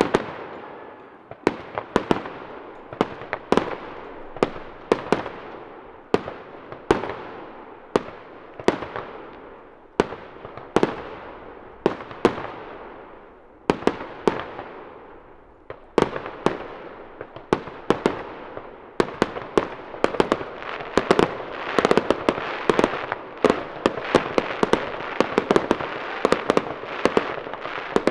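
Aerial firework shells bursting one after another, each sharp bang followed by a fading tail, about one or two a second. About two-thirds of the way in the bursts come much faster and overlap into a dense barrage.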